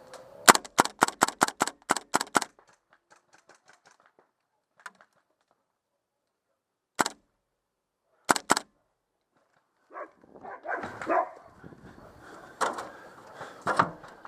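Airsoft guns firing. A rapid string of about ten sharp cracks comes in the first two seconds, followed by fainter shots. Later there is a single shot, then a quick pair, and more scattered shots amid rustling toward the end.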